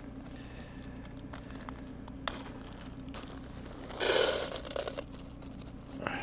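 Hcalory 5 kW diesel air heater running with a steady hum. Food packaging crinkles over it: a click about two seconds in, then a loud crinkling rustle for about a second near the middle.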